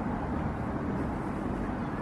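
Outdoor city street ambience: a steady low rumble of traffic.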